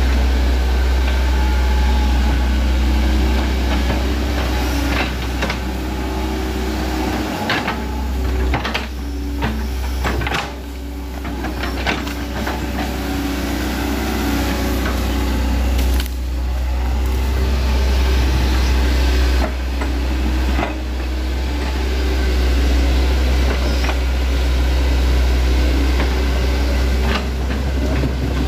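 Hitachi Zaxis 110MF excavator's diesel engine running steadily with a low drone while the machine digs mud out of a ditch, with several sharp knocks along the way.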